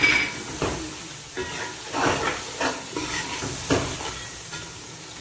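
Ladle stirring onions, tomatoes and spices in a pot of hot oil: a row of short scraping strokes, roughly one every half second to second, over a faint hiss of frying, the strokes fading near the end.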